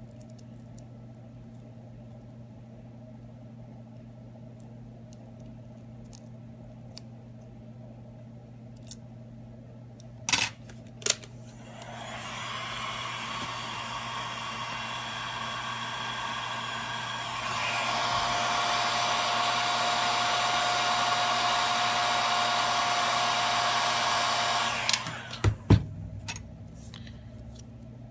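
Hot-air blower switched on and running steadily for about thirteen seconds, stepping up louder partway through, then switched off, used to soften adhesive during an iPhone screen repair. A few sharp clicks come just before it starts and as it stops.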